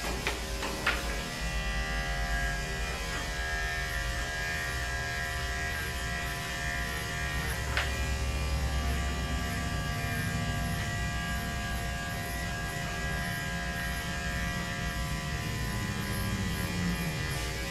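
Andis electric dog grooming clipper fitted with a #7 blade, running with a steady buzz as it is worked through a dog's coat. Two light clicks come about a second in and again near the middle.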